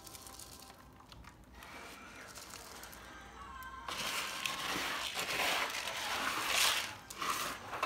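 Nylon fabric of a pet bed crinkling and rustling as a ragdoll kitten scrambles in it, starting abruptly about four seconds in. Before that there are only faint sounds.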